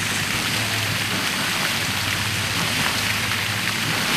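A steady hiss with a low hum under it.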